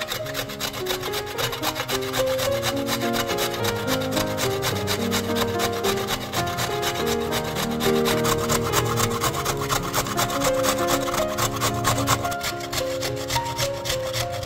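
A carrot being grated on the large holes of a stainless-steel box grater, in rapid repeated strokes.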